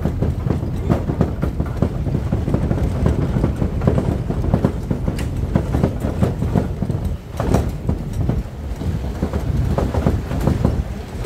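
Low rumbling buffeting on the microphone with dense, irregular clattering and knocks, the sound of moving along a rough dirt road.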